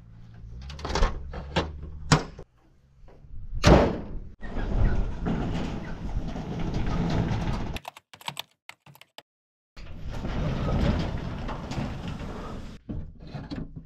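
Knocks and thuds of gear being handled and set down, with a loud thump about four seconds in, followed by two stretches of steady rushing noise with a sudden break to silence between them.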